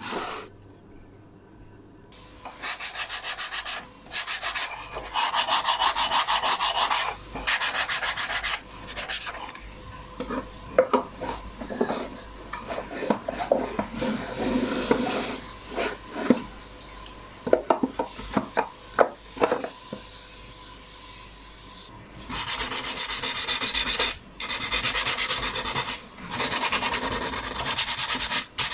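Hand abrasion of wood, sandpaper or file rubbing in quick repeated strokes, in two long spells. Between them comes a run of sharp light knocks and clicks.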